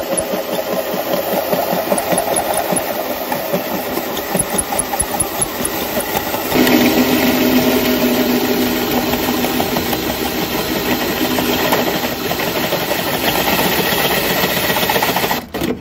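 A handheld power tool running steadily as it works into the van's wall; about six and a half seconds in its pitch steps up and it gets louder, and it stops abruptly just before the end.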